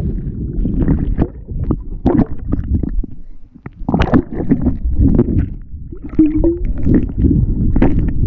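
Churning water and bubbles heard through a camera held underwater: a low, muffled rumble with frequent sharper knocks and splashes.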